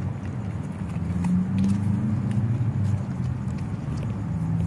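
A vehicle engine running with a low, steady hum, with a few faint clicks.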